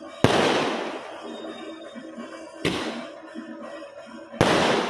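Three loud firecracker bangs in the air. The first is just after the start, the second about two and a half seconds later and the third under two seconds after that, each with an echo that fades over about a second.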